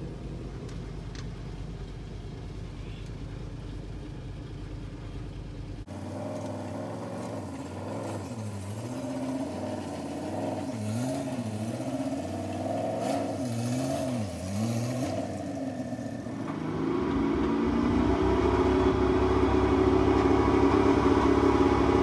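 Dump truck's engine running: a steady low idle, then revs rising and falling several times, then held higher and louder from about two-thirds of the way in as the tipper body is raised to dump its load of granite screenings.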